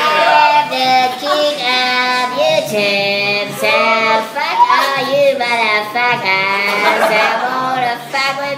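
A man singing in a high, squeaky voice pitched up by inhaled helium, holding drawn-out notes one after another.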